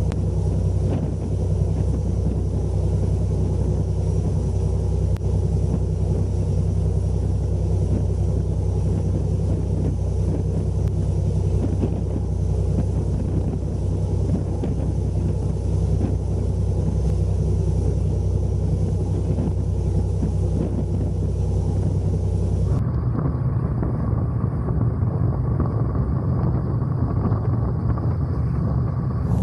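Inter-island speedboat's engines running steadily at speed, with wind buffeting the microphone. About 23 seconds in, the sound switches abruptly to a deeper, rumbling engine drone.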